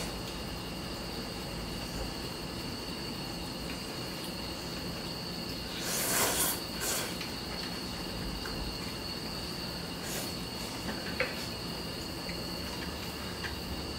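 Crickets chirring steadily, with a loud slurp of noodles being sucked up about six seconds in.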